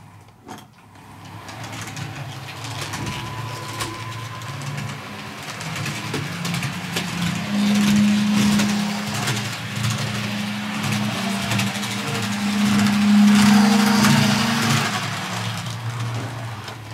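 Motor and gear drive of a TT-scale MTB class 842 railcar model running round the track, a buzzing hum with a noisy rattle over it that starts about a second in and gets louder twice, about halfway and again later on. The drive is so noisy that the owner calls it terrible, a sign of a badly prepared gearing.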